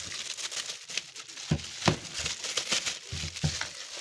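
Thin polyethylene plastic sheet crinkling and rustling as it is wrapped around a speed-skate boot, with a few soft handling knocks in the middle.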